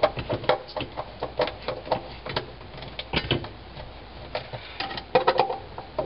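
Screwdriver turning out the screw that holds the plastic soil accumulator in the bottom of a dishwasher tub: irregular small clicks and scrapes, several a second, with a quick cluster of them about five seconds in.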